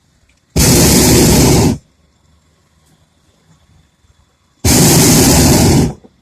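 Hot-air balloon's propane burner firing twice, each time a loud, steady rushing blast of a little over a second that starts and stops abruptly, the two about three seconds apart. The burner is heating the envelope to control the balloon's height.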